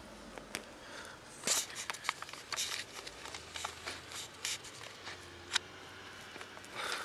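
Rustling and scattered sharp clicks and snaps of something moving through leafy brush.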